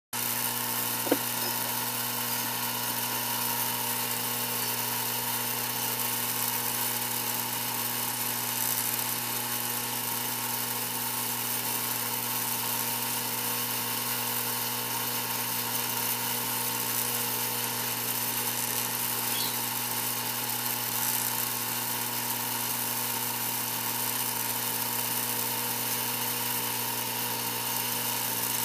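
Steady electric buzz of a postwar Lionel 3656 stockyard's vibrator mechanism, shaking the toy cattle along the pens and into the cattle car. A single sharp click about a second in.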